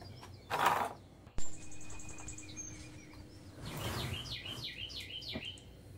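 Birds chirping and singing, with a quick run of high chirps about a second and a half in and a series of short falling chirps in the second half. A brief broom swish on wooden deck boards comes about half a second in, and a sharp knock, the loudest sound, follows about a second later.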